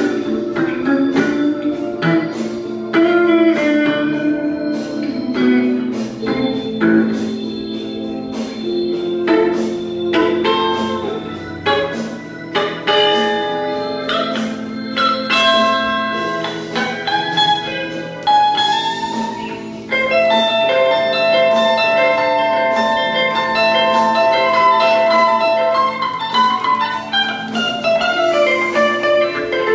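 Guitar improvising a blues solo: plucked single notes and string bends, with long held notes through the later part.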